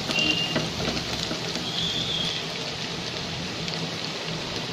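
Chopped garlic and ginger sizzling steadily in hot oil and ghee in a nonstick pan, with a few light strokes of a silicone spatula at the start.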